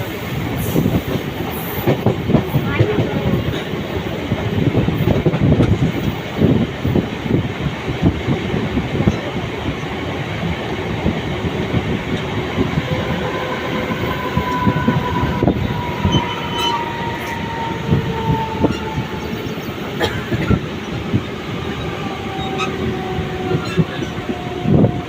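Mumbai suburban local train running on the track: a steady rumble with repeated clicks of the wheels over the rails. Through the second half a high tone slowly falls in pitch.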